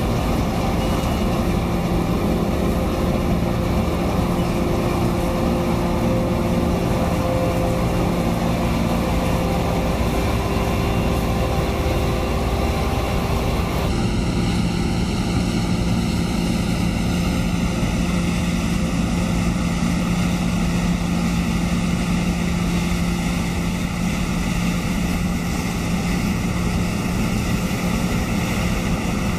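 Laverda M310 combine harvester running steadily while harvesting soybeans: a continuous drone from its engine and threshing machinery, with a steady hum. The sound changes abruptly about halfway through.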